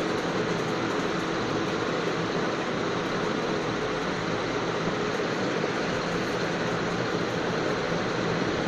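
Steady rushing noise with a faint low hum that does not change, with no separate pen strokes standing out.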